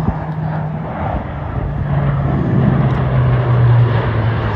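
Lockheed C-130J Hercules turboprop transport flying past, its propellers and engines giving a loud, steady low drone that drops in pitch about two seconds in and again near the end as it passes.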